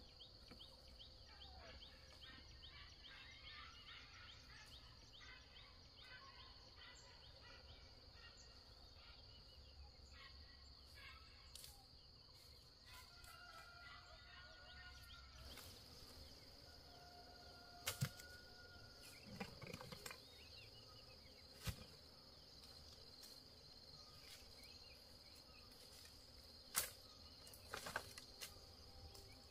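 Faint rural background: a steady high drone of insects with small bird chirps, broken later by a few sharp snaps or knocks, the loudest about two-thirds through and again near the end.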